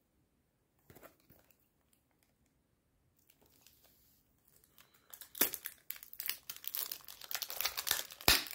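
Cellophane shrink-wrap being torn and peeled off a perfume box: a brief crackle about a second in, then dense crinkling and crackling from about halfway through, loudest near the end.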